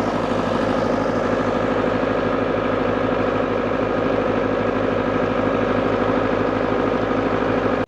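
Engine idling steadily with an even, fast low pulse; it cuts off suddenly at the very end.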